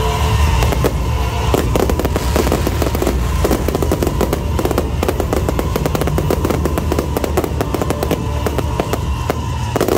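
Fireworks going off in a dense, rapid string of cracks and bangs from about a second and a half in, over music with a held tone and a low rumble.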